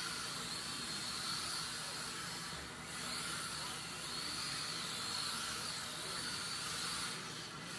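Electric motor of a Mini-Z MRD RC drift car whining, its pitch wavering up and down with the throttle, over a steady hiss. The whine eases off briefly twice, about three seconds in and near the end.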